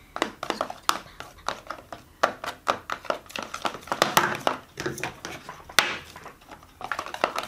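Glue and shaving foam being stirred into fluffy slime with a stick in a container: a run of quick, irregular clicks and taps, several a second.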